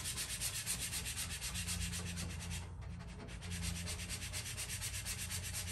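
A plastic credit card scraping over a vinyl decal's paper transfer tape on a metal toolbox, burnishing it down in rapid, even strokes. The strokes break off briefly about three seconds in, then resume.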